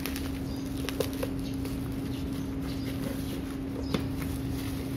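Plastic courier bag and bubble wrap crinkling and rustling as a package is torn open and unwrapped by hand, with a sharp click about a second in and another near the end, over a steady hum.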